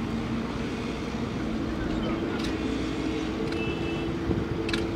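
A distant engine running steadily, its drone stepping up in pitch about a second and a half in, over a low wind rumble, with a few faint high chirps.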